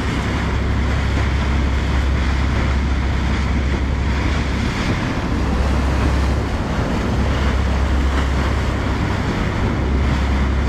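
Wind buffeting the microphone over the steady rush and splash of water along the bow of a boat under way, with a constant low rumble underneath.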